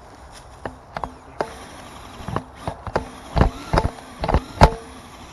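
Irregular sharp knocks and clacks, sparse at first and then louder and closer together from about two seconds in, the loudest near the end. These fit a scale RC crawler truck's tyres and chassis banging over rocks and roots as it climbs an obstacle.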